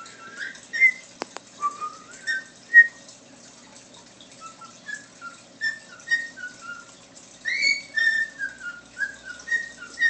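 Cockatiel whistling a tune: a string of short whistled notes, many sliding up or down in pitch, coming thicker near the end. A sharp click about a second in.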